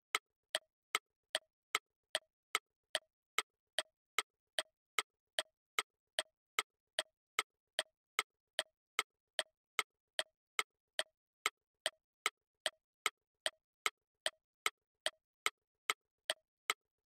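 Ticking-clock sound effect counting down a quiz timer: short sharp ticks at an even pace of about two and a half a second.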